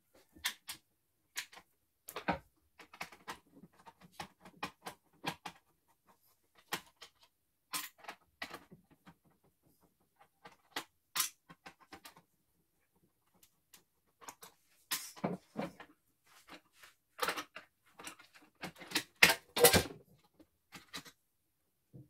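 Irregular clicks, taps and light knocks of a screwdriver and small metal parts against the opened metal chassis of a CNY E900 embroidery machine as a circuit board is fitted to its side. The clicking grows busier and louder in the second half.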